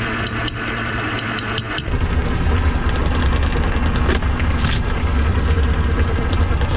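A sailboat's engine running steadily. About two seconds in the sound jumps louder, with a heavier low rumble.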